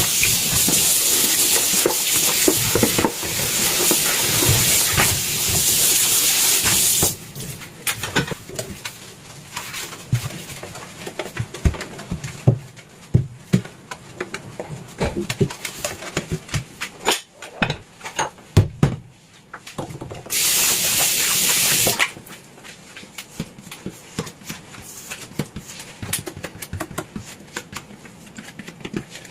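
Kitchen tap running into the sink for about seven seconds, then stopping. Dishes and utensils clink and knock as they are washed by hand, broken by a second short run of the tap about two-thirds of the way through.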